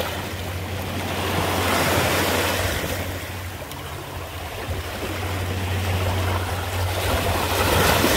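Small waves washing in over a rocky shore, the surf frothing among the stones and swelling about two seconds in and again near the end, over a steady low rumble.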